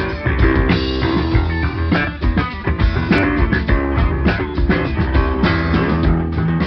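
Funk-rock band playing: electric guitar and bass guitar over a drum kit, with a steady beat.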